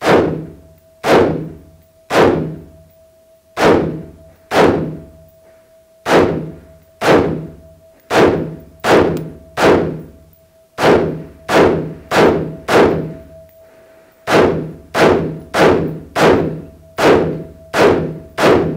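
AR-15-style carbine fired semi-automatically in paced single shots, about twenty in all at roughly one every half second to a second, with a brief pause about two-thirds of the way through. Each shot echoes off the concrete walls of the indoor range, over a faint steady hum.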